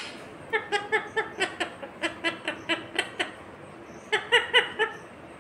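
Pet parakeet giving a quick run of short, high, laugh-like chuckling calls, about four or five a second, then after a pause a shorter run near the end.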